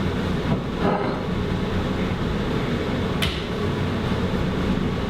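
Steady drone of a ventilation fan, with a couple of light clicks or knocks, one about a second in and a sharper one about three seconds in.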